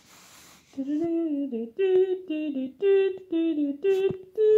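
A man humming a tune in short held notes that step up and down in pitch, starting about a second in after a brief rustle of the camera being handled.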